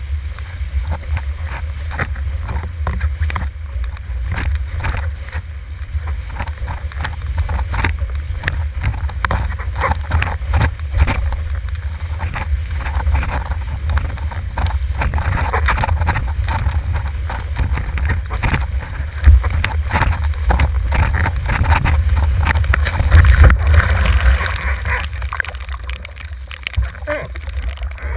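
Wind buffeting a camera microphone on a sailing windsurf rig, a steady low rumble, with the board knocking and slapping through choppy water over and over and a rushing water hiss.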